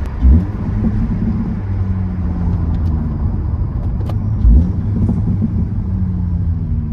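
Honda K24A4 four-cylinder engine and HKS Hi-Power muffler droning while cruising, heard from inside the cabin, with the pitch slowly sliding as the revs change. Two brief low thumps stand out, one just after the start and one about four and a half seconds in.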